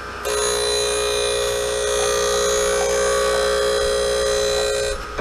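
Harig 6-12 surface grinder's wheel grinding A2 tool-steel parallels on the last pass to size: a steady whine with a grinding hiss. It builds about a quarter second in as the wheel meets the work and drops off near the end as it runs off.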